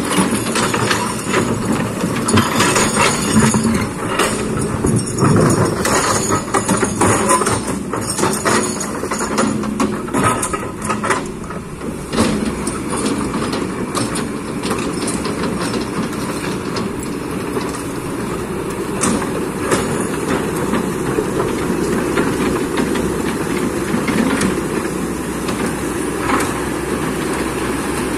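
Kobelco hydraulic excavator's diesel engine running at work, with many sharp knocks and clatter over the first twelve seconds or so, then running more steadily.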